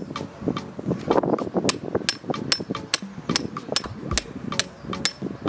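Repeated sharp metallic strikes, about two to three a second, each with a short bright ring, like a hammer hitting metal, over background music.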